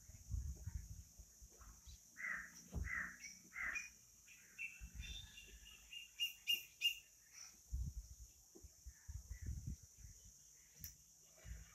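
Birds calling: a string of short calls about two to four seconds in, then higher, quicker chirps around six to seven seconds in. Scattered low thumps sound through the calls.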